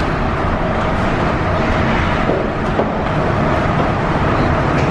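Loud, steady rushing noise with a constant hum, the ambience of a cruise ship's enclosed working deck: machinery and moving air.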